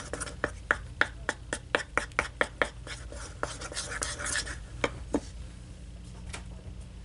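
A stir stick knocking and scraping against the side of a bowl as a thick glue and shaving-cream slime mixture is stirred. The quick knocks come about four a second, thin out and stop about five seconds in.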